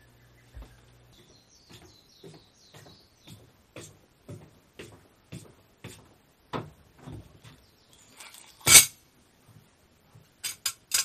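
Footsteps on a wooden deck, about two a second, then a loud knock as a plastic bottle of cooking oil is set down on a wooden table, followed by three sharp clicks near the end. A bird chirps briefly in the first few seconds.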